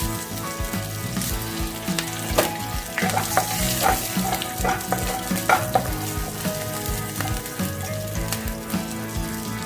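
Cumin seeds and chopped green chillies sizzling in hot oil in a pan. A spoon stirs and clicks against the pan in a run of knocks from about two to five and a half seconds in.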